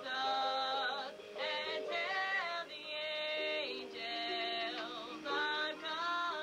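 A woman singing a melody, holding notes with vibrato, accompanied by an electric keyboard.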